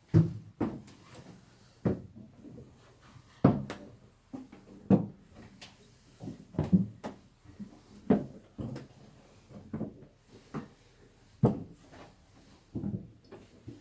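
Footsteps climbing wooden stairs inside a bell tower: irregular knocking steps about one a second, some heavier than others, in a small echoing space.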